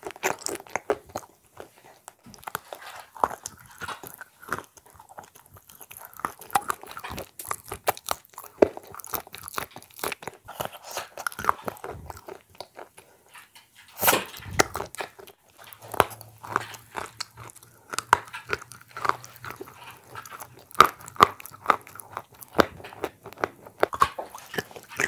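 Close-miked biting and chewing of shortbread cookies dipped in a thick paste, with many short, wet mouth clicks. There is a louder burst about halfway through.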